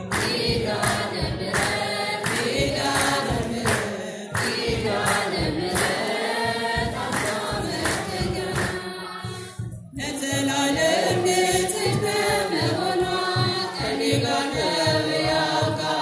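Orthodox Tewahedo church choir singing a hymn together to a steady beat of regular strokes. There is a short break in the singing just before ten seconds in.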